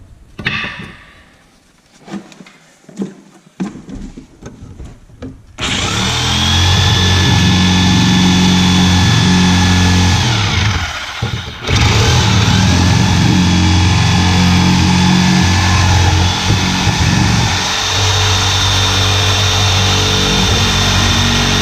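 A few light knocks, then a power tool starting about five seconds in and running steadily while cutting off the wooden stair noses, with a brief break just before the middle.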